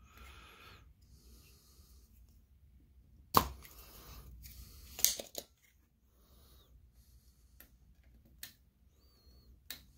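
Desoldering pump (solder sucker) snapping as solder is cleared from a ballast circuit board's through-hole pads, to free the shorted MOSFET: one sharp snap about three and a half seconds in, a rustle, and a second click about five seconds in, then a few light ticks.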